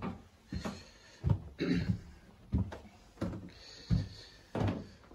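Footsteps climbing a staircase at a steady pace, about one step every two-thirds of a second.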